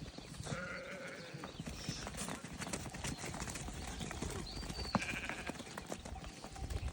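Merino sheep in a flock bleating, with calls about half a second in and again near five seconds, over scattered clicks and knocks of animals moving about.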